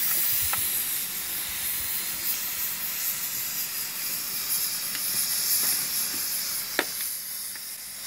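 Steady hiss of steam from pots boiling on a wood-burning stove, with a faint click about half a second in and a sharp click near the end as firewood is handled and pushed into the firebox.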